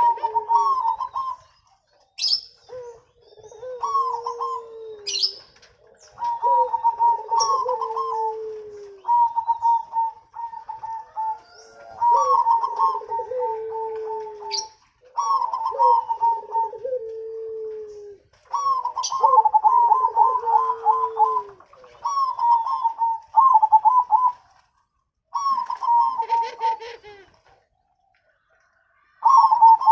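Zebra doves (perkutut) cooing in repeated phrases of quick rippling notes over a lower note that slides down, each phrase a couple of seconds long with short pauses between. Faint short high chirps sound now and then.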